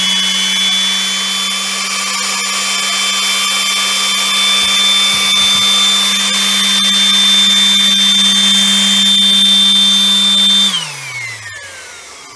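A cheap 300-watt electric orbital sander running at full speed with a steady hum and a high whine. About ten and a half seconds in it is switched off and winds down, its pitch falling away.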